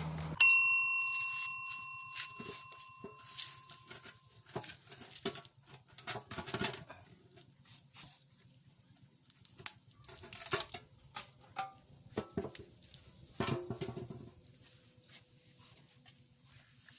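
A sharp metallic clang that rings on for about three seconds, then irregular knocks, taps and scrapes of tools working on a dented steel motorcycle fuel tank.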